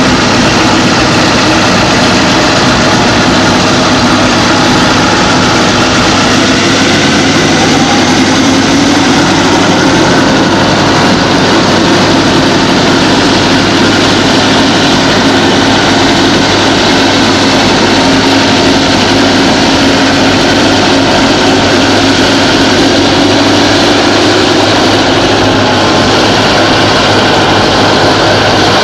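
Victorian Railways T class diesel-electric locomotives running at the head of a grain train, a loud, steady engine drone under a heavy hiss.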